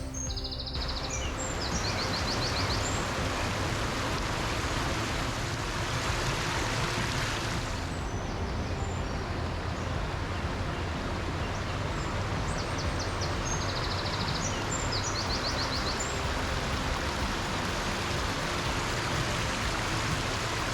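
Waterfall rushing steadily, with a small bird's quick trilled song breaking in twice, near the start and about two-thirds of the way through.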